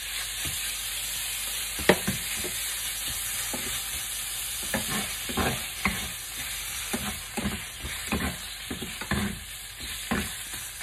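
Sliced pork sizzling in hot oil in a frying pan while it is stir-fried with a wooden spatula and a wooden fork. The steady sizzle is broken by repeated knocks and scrapes of the wooden utensils against the pan, about twice a second from about two seconds in.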